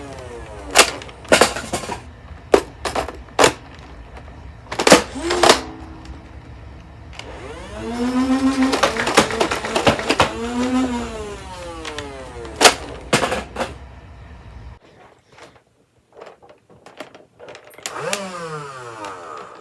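Nerf blasters being handled and reloaded: sharp plastic clicks and clacks, and several times a flywheel motor spinning up to a whine and winding down again.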